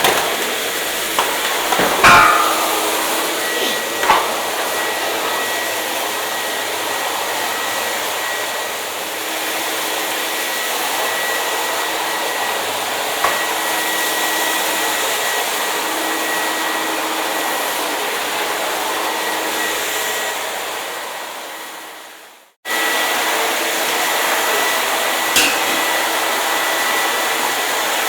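Hair dryer running with a steady rush of air and a faint motor whine, with a few short knocks, the loudest about two seconds in. About twenty seconds in the sound fades away over a second or two, then comes straight back on at full strength.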